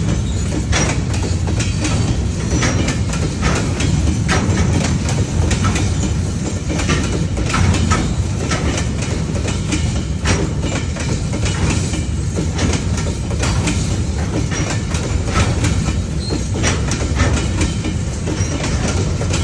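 Railway carriages rolling along the track: a steady low rumble with a continuous, irregular clatter of wheels over rail joints.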